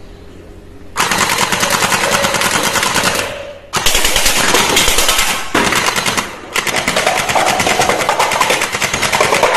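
AUG-style gel ball blaster firing on full auto in three long rapid-fire bursts with short pauses between them.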